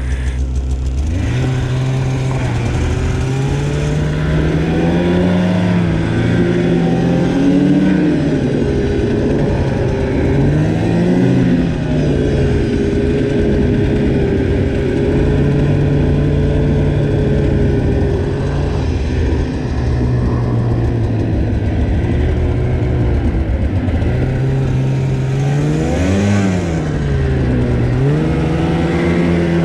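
Snowmobile engine throttling up about a second in, then running hard under load through deep powder snow, its pitch rising and falling again and again with the throttle.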